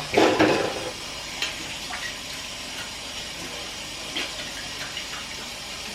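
Kitchen tap running steadily as hands are rinsed under the stream, louder in the first second, with a few faint knocks.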